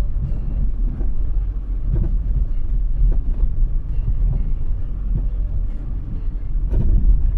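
Car driving along a street, heard from inside the cabin: a steady low rumble of engine and tyres, with a sharper bump about a second before the end.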